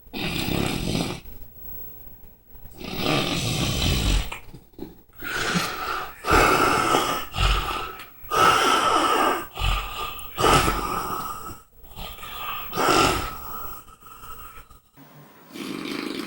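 Loud snoring: a series of long snoring breaths, one about every one and a half to two seconds. Several of them carry a steady whistling note.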